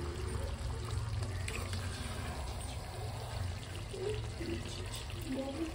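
Steady low hum under a faint, even watery hiss, from a kitchen with a pan of chicken gravy on the stove.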